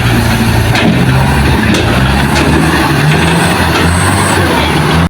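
Heavy diesel earthmoving machinery running, its engine note rising and falling with load, with a few faint knocks. The sound cuts off abruptly at the end.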